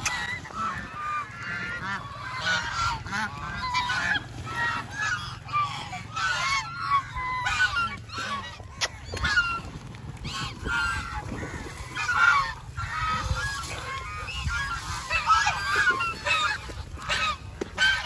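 A flock of domestic ducks quacking, many short calls overlapping in a continuous clamour as the birds crowd together at feeding time.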